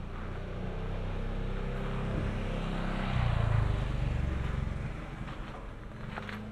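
A motor vehicle driving past: engine hum with tyre noise that swells to a peak about three and a half seconds in, then fades away.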